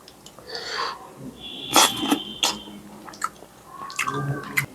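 A person eating fish curry and rice: mouth sounds of chewing and lip smacks with scattered sharp clicks, and a short ringing clink about two seconds in.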